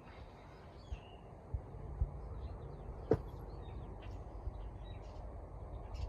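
Ceiling fan turning slowly on a low wall-control speed, with a steady low hum. Faint bird chirps sound in the background, and there is a single sharp click about three seconds in.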